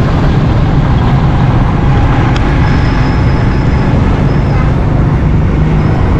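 Motorcycle engine running at steady riding speed, with wind rushing over the microphone and road traffic around it.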